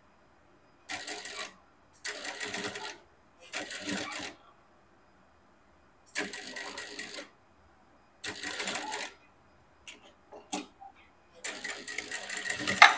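Industrial lockstitch sewing machine stitching a seam in short stop-start runs: six runs of about a second or less, with two quick single taps between the last two. The last run is the longest and loudest.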